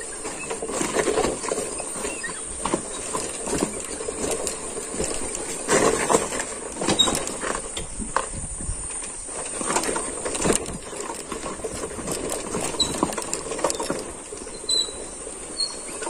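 Irregular rattling and knocking of a vehicle jolting over a potholed road, with a steady high insect drone over it.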